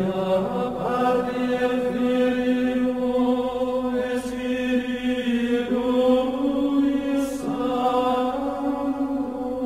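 Background music of slow chanted singing, long held notes that step from pitch to pitch every second or two.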